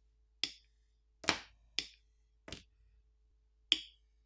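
Light clicks and taps as a metal pry tool and fingers handle a removed glass smartphone back plate: five short, sharp taps at uneven intervals.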